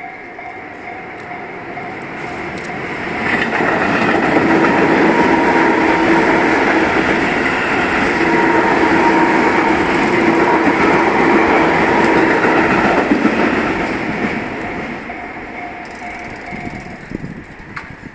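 Level-crossing warning bell ringing steadily while a ten-car Tobu Tojo Line electric train passes over the crossing. The train's wheel and motor noise rises to its loudest from about three to fourteen seconds in, then fades, and the bell stops about seventeen seconds in.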